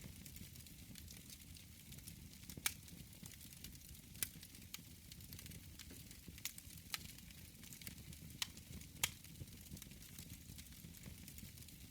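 Wood fire burning in a Ferlux fireplace insert: a steady low rushing hiss with sharp, irregular crackles and pops, about six of them loud.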